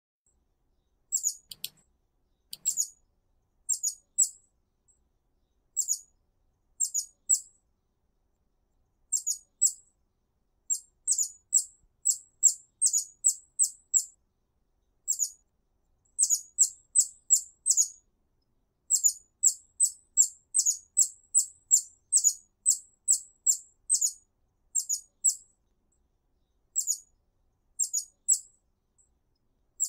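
Hummingbird giving short, very high-pitched chip calls, singly and in quick runs of two to four, with silent gaps between runs.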